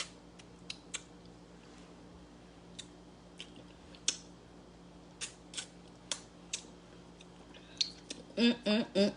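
Mouth smacks and sucking clicks from a person eating stewed fish head off the bone, sharp and irregular, roughly one every half second to second. Near the end a short hummed, voiced sound with rising and falling pitch.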